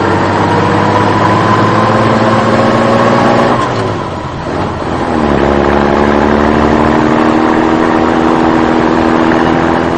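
A motor running with a slowly rising pitch. It drops away briefly about four seconds in, then starts up again and runs steadily.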